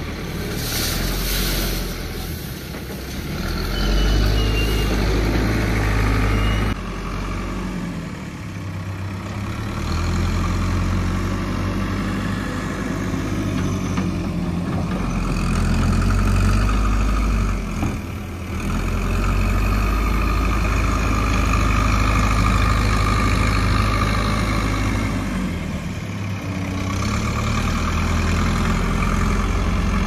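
Backhoe loader's diesel engine working under load. Its revs swell and drop back again and again.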